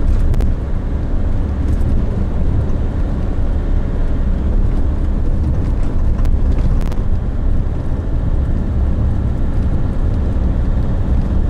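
Car driving along a road: a steady low rumble of engine and tyre noise, with no change in pace.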